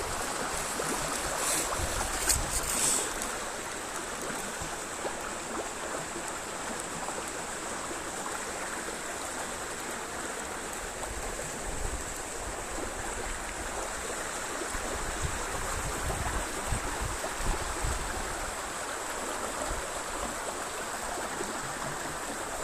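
A small river flowing over rocks: a steady rushing of water. A few short clicks about two seconds in.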